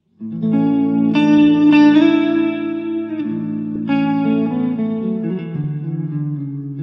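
Instrumental background music with held chords, starting a moment in after a brief silence.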